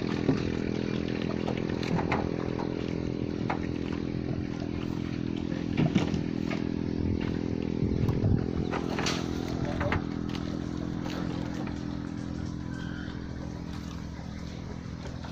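Small boat engine running steadily at a constant speed, with a few scattered knocks and clatters over it; it fades gradually in the last few seconds.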